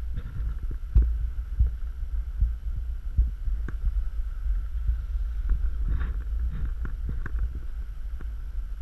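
Wind buffeting the microphone of an action camera carried down a ski run at speed, a steady low rumble with many irregular thumps and knocks from the ride over the snow.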